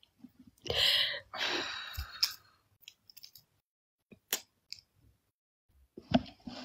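Raw carrot being bitten and chewed close to a phone microphone: a loud crunching bite about a second in, then a short stretch of chewing and scattered sharp crackles.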